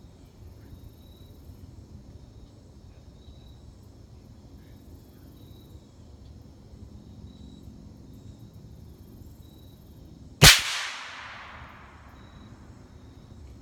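A single shot from a suppressed .308 Savage rifle with a YHM suppressor: one sharp crack about ten seconds in, trailing off over a second or so.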